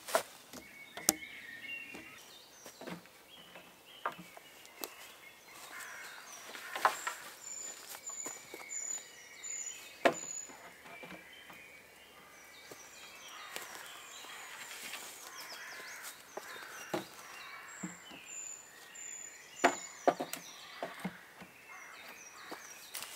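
Irregular wooden knocks and clatters as long poles are handled and set against a lean-to shelter frame. Woodland birdsong runs underneath, including two runs of high, thin repeated notes.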